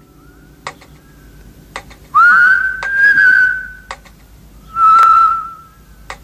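Whistle-like tones over soft ticks about once a second. A faint steady note gives way, about two seconds in, to a loud note that swoops up and is held. A second, shorter held note comes about five seconds in.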